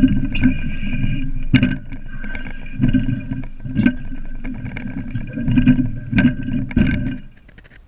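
Climbing gear knocking and scraping against a metal flagpole as a climber works his way up it, with sharp knocks about once a second over a constant rumble and a steady high ringing. The noise stops suddenly shortly before the end.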